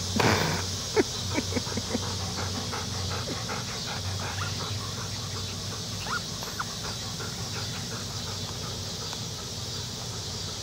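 Cardigan Welsh Corgi puppies yipping and squealing as they play. There is a quick cluster of short, high yips in the first two seconds and a couple more about six seconds in, over a steady high hiss.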